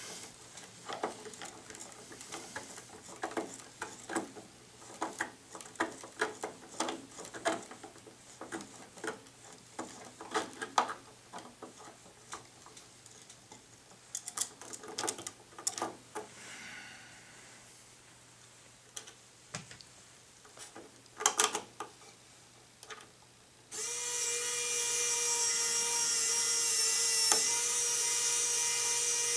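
Irregular light clicks and scrapes of a screwdriver working screws out of a plastic engine mount. About 24 s in, a small electric drill starts and runs at a steady pitch, its bit marking the hole positions through the mount into the firewall.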